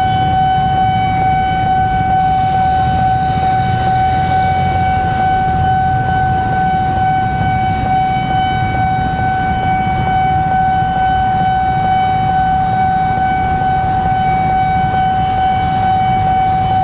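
A CC206 diesel-electric locomotive running light, with no carriages, rolls slowly with a low engine rumble. Over it sounds a steady, unbroken high-pitched tone.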